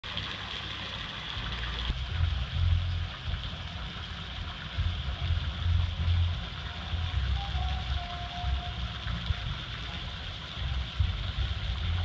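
Fountain water jets splashing steadily into a pond, a continuous hiss. Irregular low rumbles on the microphone come and go.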